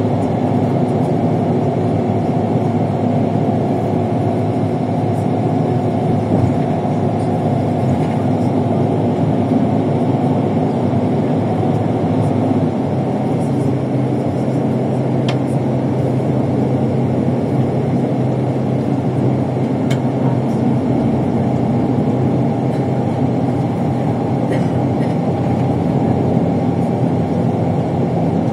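ALSA bus in motion: steady diesel engine and road noise, with the engine note shifting a little about halfway through.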